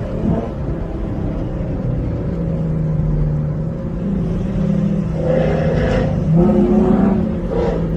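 Car engine and exhaust running while driving, its pitch climbing a little about five seconds in as the car picks up speed.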